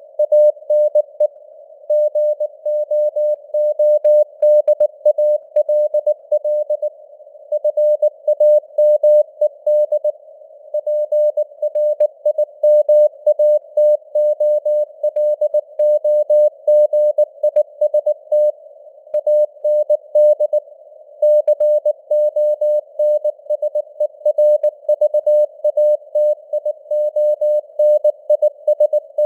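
Morse code (CW) at 19 words per minute: a single mid-pitched tone keyed on and off in dots and dashes, with short pauses between words. It sits over a narrow band of hiss and fades slowly up and down, like a radio signal with QSB.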